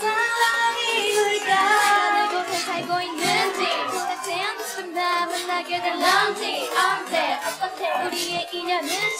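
Several young women singing live into microphones with the instrumental backing track stripped out, leaving only their voices. The voices overlap and waver in pitch, over a thin, bass-less sound.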